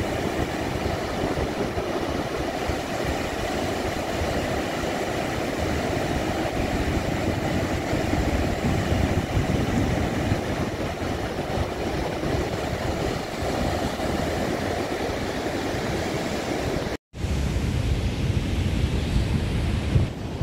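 Ocean surf from a heavy storm swell breaking on a beach, a steady roar of waves. About 17 seconds in the sound cuts out for an instant and comes back with a deeper rumble of wind on the microphone over the surf.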